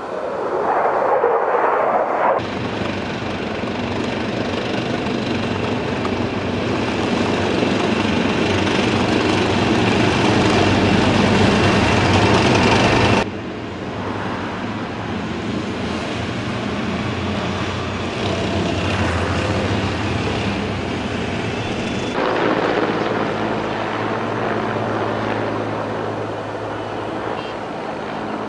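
Military jet and engine noise in several abrupt cuts: a fighter jet flying over, then a tank's engine running with a steady low hum, and in the last part a transport helicopter flying.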